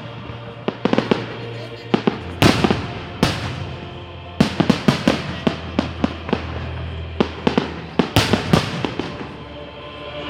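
Fireworks going off: repeated sharp bangs and crackling pops, coming in thick clusters about a quarter, half and four-fifths of the way through.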